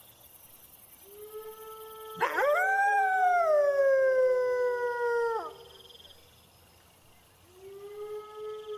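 Wolves howling. A long howl sweeps up and slides slowly down over about three seconds, over a lower, steady howl from a second animal, and another howl begins near the end. Crickets chirp faintly underneath.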